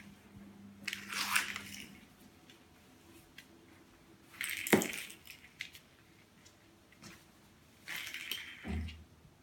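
A broom sweeping a hard floor in three swishing strokes, with a sharp click in the middle stroke and a dull thump near the end.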